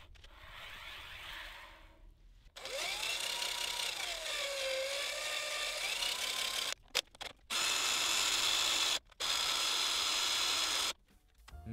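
Black+Decker cordless drill spinning a ball screw by its pulley shaft, running the ball nut along the screw. The drill starts about two and a half seconds in, its motor pitch rising and falling with the trigger, and stops briefly twice before cutting off near the end.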